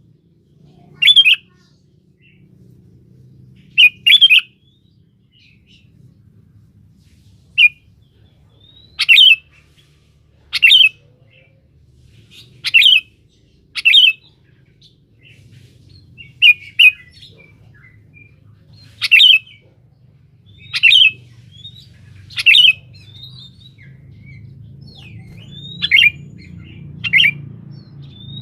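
Sooty-headed bulbul (kutilang) giving short, loud calls every second or two, some in quick pairs: its calling-out call, made to challenge a rival bird. A faint low hum runs underneath.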